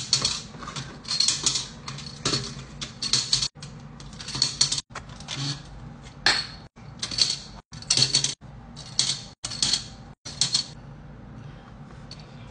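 Plastic Connect 4 checkers dropped one after another into the upright grid, each rattling down its column, about one a second. The sound cuts out completely for an instant several times.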